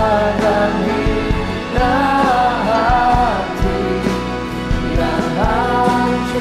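Live worship music: a band with acoustic guitar and drums playing a slow Christian song, with a sung melody line.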